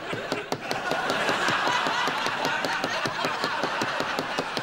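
Studio audience laughing, a dense, steady laugh.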